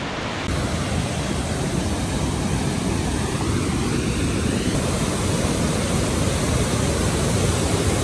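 Tiered waterfall rushing: a steady, loud wash of falling water over rock ledges, filling in fully about half a second in.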